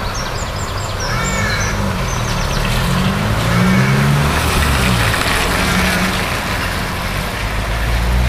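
Steady rush of a river in flood after heavy rain. Under it, the engine of a passing road vehicle hums, rising and falling, and a few bird chirps come in the first two seconds.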